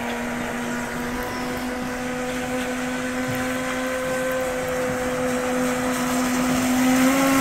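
Proboat Super Sonic Wake 48 RC speedboat's brushless electric motor running with a steady whine, growing louder toward the end.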